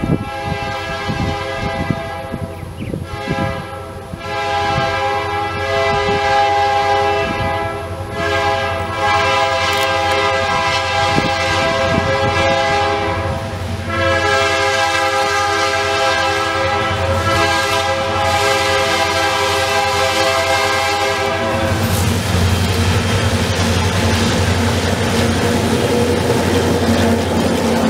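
Diesel freight locomotive's air horn sounding a series of long blasts as the train approaches, the last held about seven seconds, the usual grade-crossing signal. About 22 seconds in the horn stops, and the locomotives pass close by with a low engine rumble and the rolling noise of the wheels.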